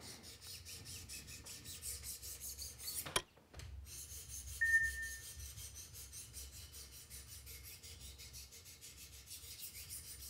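Wicked Edge sharpener's 600-grit diamond stones stroking along a knife edge in a quick, even rhythm of scraping strokes: a light polishing pass. The strokes pause briefly with a sharp click about three seconds in, then carry on.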